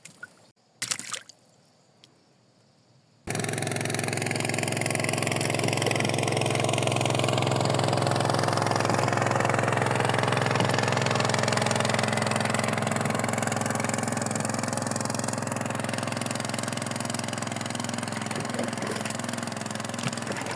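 Small boat engine running steadily, coming in abruptly about three seconds in after a near-quiet moment with a couple of clicks.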